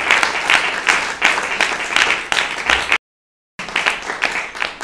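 Audience applauding, a dense patter of many hands clapping. The sound cuts out completely for about half a second about three seconds in, then the clapping carries on and thins near the end.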